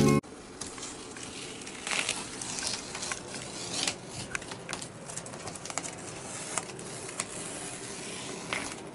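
Blue painter's tape being pulled off the roll and pressed along a window frame: an irregular run of small crackles and clicks over a steady hiss.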